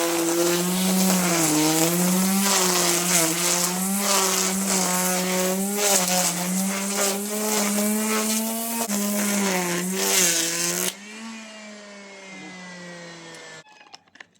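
Bosch electric lawn mower running and cutting grass, its motor pitch dipping and recovering as it takes load. About eleven seconds in it is switched off: the hum drops sharply and winds down for a couple of seconds before stopping, followed by a few clicks.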